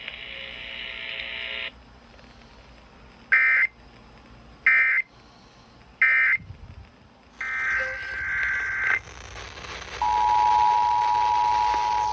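Emergency Alert System data tones on NOAA Weather Radio: three short, identical high warbling data bursts, the end-of-message code, then about two seconds later a longer data burst. About 10 s in, the steady two-tone EAS attention signal starts, marking the start of a new alert. A brief steady buzz comes first.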